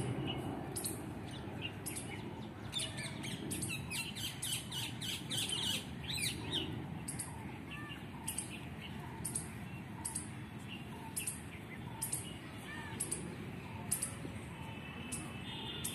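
Outdoor birdsong: several birds chirping and calling, with a dense run of quick chirps a few seconds in and smaller repeated calls later, over a steady series of short, very high ticks.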